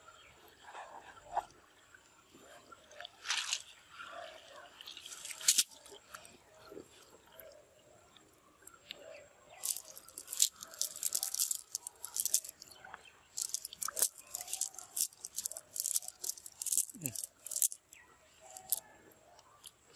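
Cast net being handled and gathered up over dry leaves and wet ground: irregular crackling and rustling, thickest in the second half.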